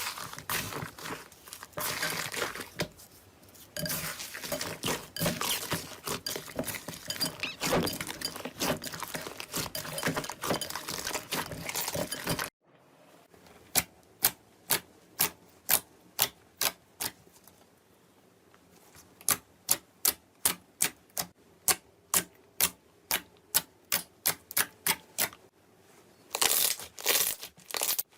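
Slime being squeezed and worked by hand: dense, crackly squishing and popping for about twelve seconds. Then, after a break, single sharp pops come about twice a second, and the dense crackling returns near the end.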